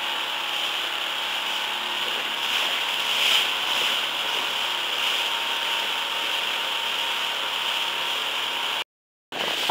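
Outboard motor running steadily at speed on a small open boat, under a constant rushing noise. The sound cuts out abruptly for a moment near the end.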